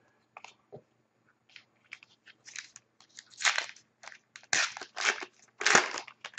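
A 2010-11 Panini Zenith hockey card pack's wrapper crinkling and crackling in a string of short bursts as it is handled and torn open, loudest in the second half.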